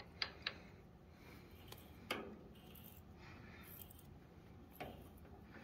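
A few faint metallic clicks and ticks from a hand-turned T-handle tap wrench and spring-loaded tapping tool as a tap chases threads in a pin on the lathe. Two clicks come right at the start, a sharper one a little after two seconds and one more near the end.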